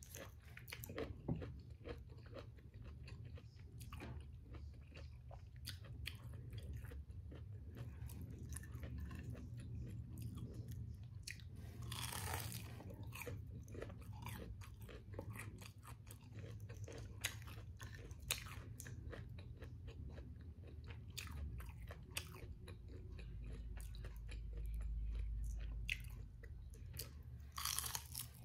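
A person biting and chewing crispy fried battered food close to the microphone. Many sharp crunches are scattered throughout, with a couple of louder crunchy bites about halfway and near the end.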